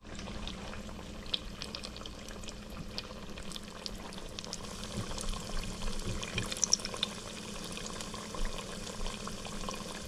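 A Nanking cherry fried pie frying in hot oil in a deep fryer basket: a steady sizzling hiss with many small crackles and pops.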